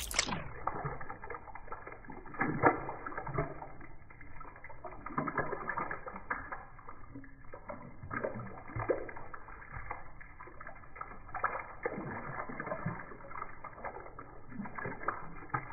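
Slowed-down, muffled sound of a garden hose stream and an Alaskan Malamute snapping and lapping at the water: irregular deep splashes and clicks.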